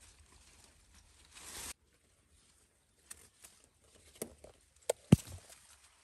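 Leaves rustling as a hand pushes through dense vine foliage, cutting off abruptly. After a silent gap come a few scattered clicks and knocks, the loudest a sharp knock about five seconds in.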